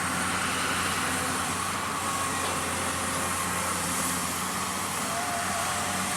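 Heavy diesel engine running steadily with a constant low hum, like heavy earth-moving machinery at work.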